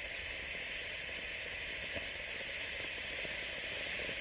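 Firework fountain from a fountain battery burning with a steady, even hiss as it sprays sparks, with scattered faint crackles.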